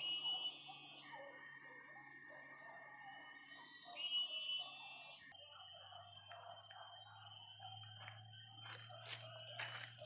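Tropical forest insects, such as cicadas and crickets, drone steadily at several high pitches. Short rising whistled calls come about half a second in and again about four seconds in. In the second half a few sharp cracks or rustles break through, like twigs snapping in the undergrowth.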